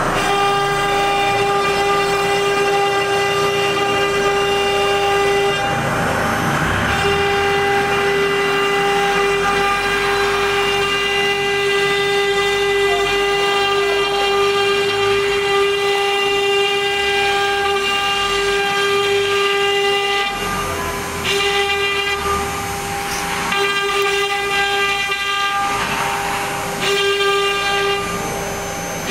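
STM1325 wood CNC router's 3 kW spindle running with a steady high whine while its bit cuts into a wooden board. A rougher cutting noise swells up a few times.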